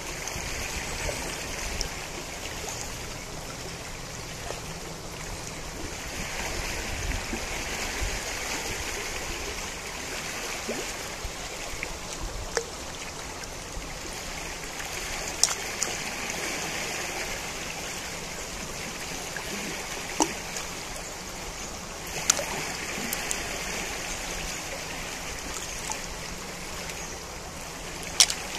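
Río Najerilla flowing: a steady rush of river water that slowly swells and eases, with a handful of short sharp clicks standing out above it.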